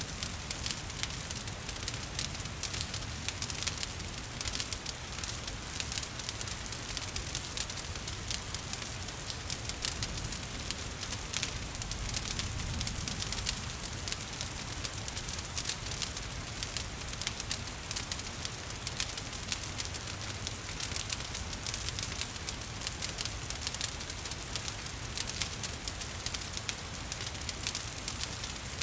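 Wood fire crackling and popping in a fireplace, with many small crackles over a steady hiss of falling rain and a low rumble of flames.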